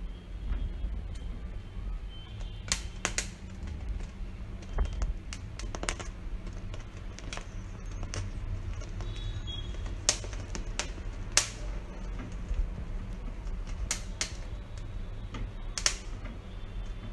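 Corn cob roasting directly over a gas stove burner: its kernels crackle and pop in sharp, irregular snaps, a dozen or so, over a low steady rumble of the flame.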